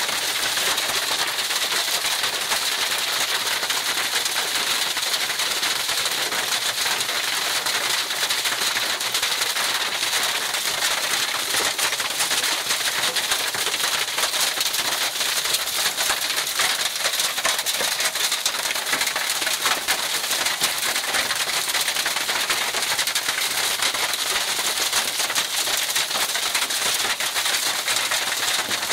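Heavy hail falling: a dense, steady crackle of countless hailstones striking the ground.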